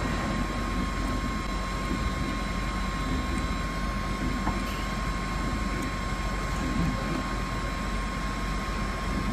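Automatic soldering robot at work: a steady mechanical hum and hiss with a constant high-pitched whine.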